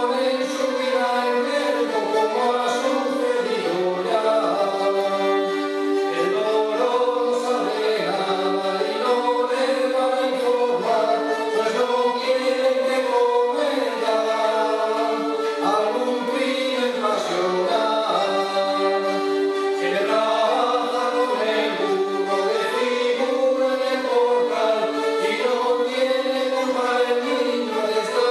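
Rabels, the bowed Cantabrian folk fiddles, playing in a group while men's voices sing a melody together.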